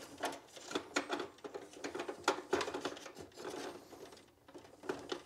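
Light plastic clicks and knocks of an ink cartridge being pushed into the cartridge holder of a Canon TS302 inkjet printer, an irregular string of small taps and rattles.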